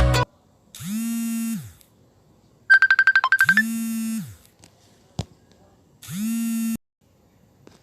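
Phone ringtone previews: three short, alike buzzy electronic tones about two and a half seconds apart, each under a second long. A quick run of rapid beeps comes just before the second tone, and a single click comes about five seconds in.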